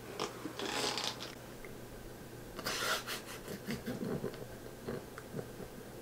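A bald cap being stretched and pulled down over the head: rustling, rubbing noises in two bursts, about a second in and about three seconds in, with small clicks and some low soft sounds of effort around the four-second mark.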